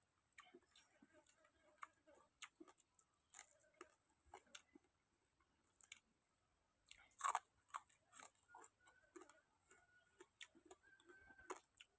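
Faint chewing with scattered small crunches and clicks, and one louder crunch about seven seconds in: someone eating grilled field rat.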